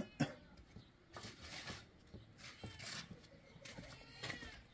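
A short animal call about four seconds in, among scattered light knocks and clicks.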